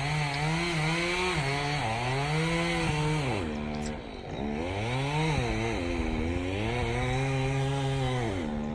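Two-stroke chainsaw cutting a burnt ponderosa pine trunk, its engine pitch rising and sagging as it bogs under load. About three and a half seconds in it drops briefly toward idle, then revs up again.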